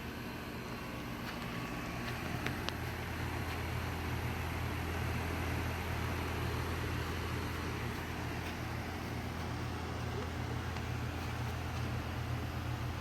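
Goodman air conditioner unit running, a steady low humming with the rush of its fan, the hum growing a little stronger about two seconds in.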